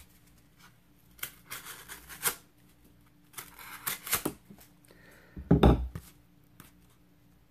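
Marbles MR302 fixed-blade knife slicing through corrugated cardboard: scratchy cutting strokes in a few short bursts, then a louder bump and rustle near the end as the cardboard is handled.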